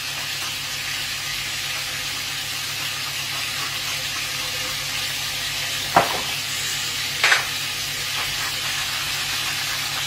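Lamb steaks frying in a hot pan, a steady sizzle, with two sharp knocks a little over a second apart past the middle.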